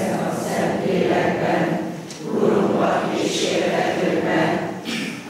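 A church congregation's many voices together in unison, in phrases of a few seconds with brief breaks about two seconds in and near the end.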